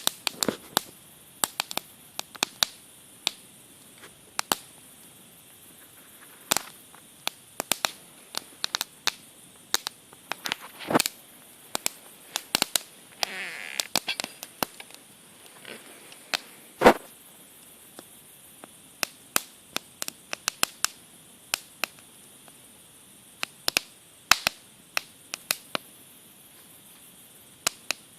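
Wood fire crackling, with irregular sharp pops and snaps over a faint steady hiss; the loudest snap comes about 17 seconds in.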